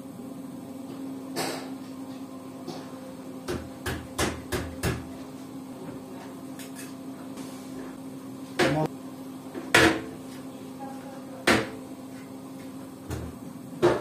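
Arçelik washer-dryer stacking kit's plastic frame being handled and pressed onto the top of a washing machine: scattered plastic knocks and clacks, a quick run of five about three to five seconds in, then single louder ones spaced a second or two apart, over a steady low hum.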